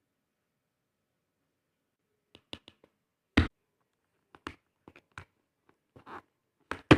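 Packaging and objects being handled during an unboxing: after about two seconds of quiet, a series of sharp clicks and taps with a few short scrapes, and two loud knocks, one about halfway and one at the very end.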